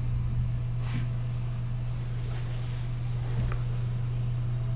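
A steady low hum, with a few light clicks and rustles from wires being handled inside a metal motor-starter enclosure.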